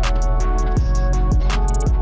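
Background music with a steady beat: a deep kick drum about every half second, fast ticking hi-hats and held instrument notes.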